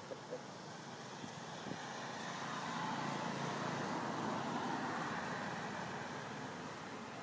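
Distant road traffic: a steady rumble that swells over a few seconds as a vehicle goes past, then eases off again.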